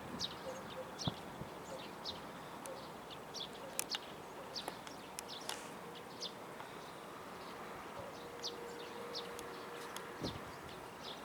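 Small birds chirping: short, high calls repeating irregularly, a few every second, over a faint steady background.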